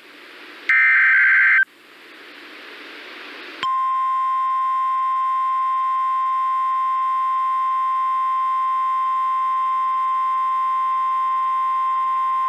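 Two short, loud, buzzy EAS/SAME digital data bursts, one right at the start and one about a second in. Radio static hiss rises for about two seconds after them, and then the steady 1050 Hz NOAA Weather Radio warning alarm tone sounds a little over three and a half seconds in and holds unbroken for about nine seconds.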